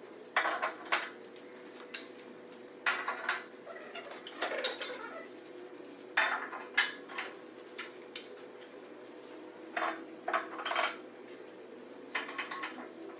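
Irregular metal clanks and rattles, a dozen or so sharp knocks in clusters, as steel swing arms are handled and fitted onto the posts of a two-post car lift. A faint steady hum runs underneath.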